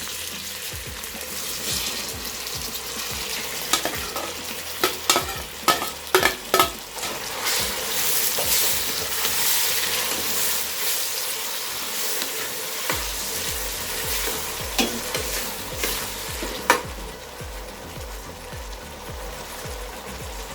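Food sizzling and frying in hot oil in a cooking pot while it is stirred, with a utensil knocking sharply against the pot several times between about 4 and 7 seconds in and once more near the end.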